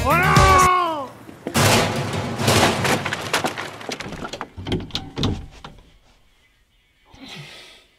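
A sliding sung note ends the music, followed by a few seconds of loud rushing noise. Then bifold closet doors clatter open with a quick run of clicks and knocks, and a short low vocal sound comes near the end.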